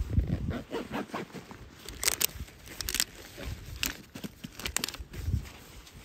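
Irregular crunching and crackling of dry undergrowth, with a heavy thump at the start and a few sharp snaps around the middle.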